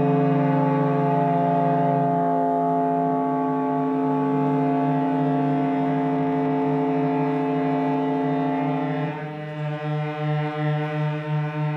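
Sustained droning chord of many held tones from a contemporary chamber ensemble playing live. A little after nine seconds one of the lower tones drops away and the sound begins to pulse, swelling and dipping about twice a second.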